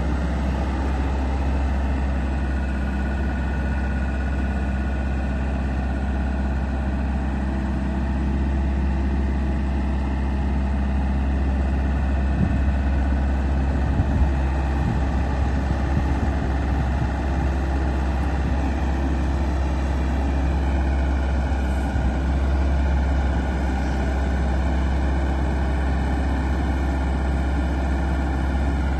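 Terex TC75 compact excavator's diesel engine running steadily while the tiltrotator bucket is swung and tilted. A few light knocks come about halfway through.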